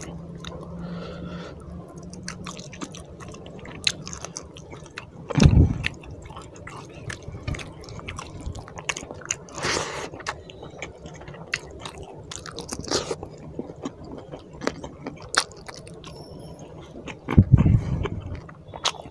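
Close-miked chewing and biting of rice and fish curry, with many quick wet mouth clicks and smacks. There are two heavy low thumps, one about five seconds in and one near the end.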